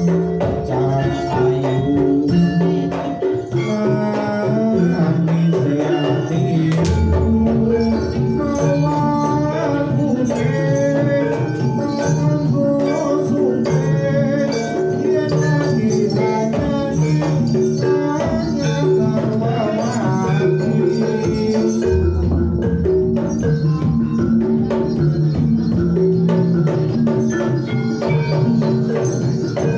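Live Javanese jaranan gamelan music: drums and metal mallet instruments playing a steady, repeating melody.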